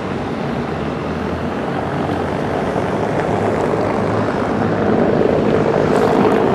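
Car tyres rattling over paving stones as a car drives past, a steady rumble that grows louder and is loudest about five seconds in.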